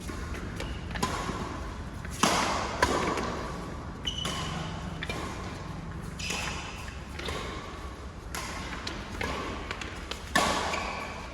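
Badminton doubles rally: rackets cracking against the shuttlecock again and again at an irregular pace, the hardest hits about two seconds in and near the end, with short high squeaks of shoes on the court floor between them.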